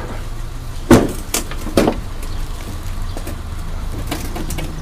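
A few sharp knocks and clunks, four in the first two seconds, the loudest about a second in, over a steady low hum.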